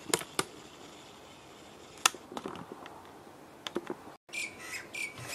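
An LCD monitor's plastic parts being handled during disassembly: several sharp clicks spread through the first four seconds, then short light scraping and rustling sounds near the end.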